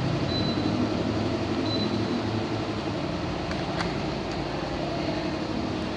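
AUX ASW-18A4/EA mini split indoor unit running: a steady hum and rush of air from its fan. A few faint ticks come in about three and a half to four seconds in.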